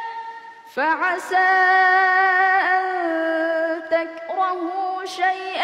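A boy reciting the Quran in melodic tajweed style, drawing out long held notes with a slight waver. There is a brief pause for breath just under a second in.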